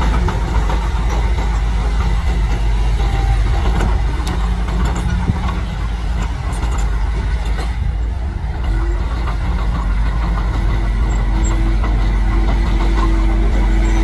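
Komatsu crawler bulldozer's diesel engine running under load as the blade pushes soil and rock. It dips a little about halfway through, then builds again.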